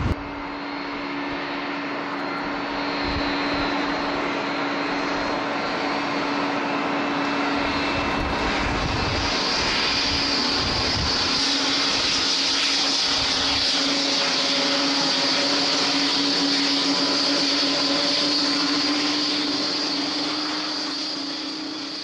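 Jet engines of a Boeing 777 twin-engine airliner running at high power on the runway: a steady hum and roar, with a high jet hiss that grows louder from about nine seconds in and eases off near the end.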